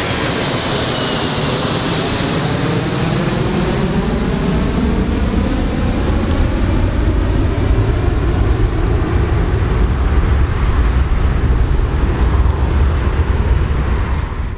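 Large airplane flying past. Its engine whine slides down in pitch while a deep rumble builds and grows louder through the second half.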